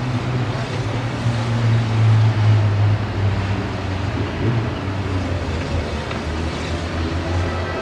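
A steady low engine rumble over general outdoor noise, swelling slightly about two seconds in.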